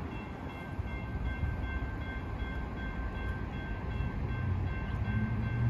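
Railroad crossing warning bell ringing in a steady repeating rhythm as the gates lower. A low rumble of an approaching train builds underneath and grows louder over the last second or two.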